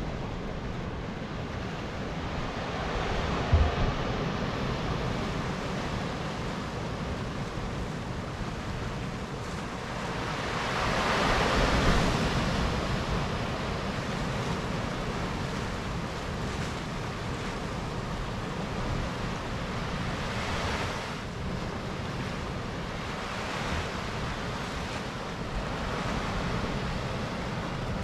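Ocean waves surging up and washing back off a sloping rock shelf, swelling several times and loudest about eleven seconds in. Wind rumbles on the microphone underneath, with a short low thump about three and a half seconds in.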